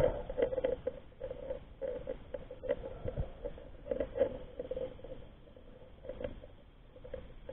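Irregular clicking and scratching heard underwater through a camera housing: a crab's claws and legs picking at bait on a speargun shaft right beside the camera.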